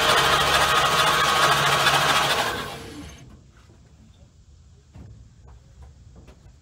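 Starter cranking the inline six of a 1954 Chevy 3800 pickup with its spark plugs out: a steady fast spin with air hissing from the open plug holes, blowing out the mystery oil left in the cylinders. It stops about two and a half seconds in, leaving a few faint ticks.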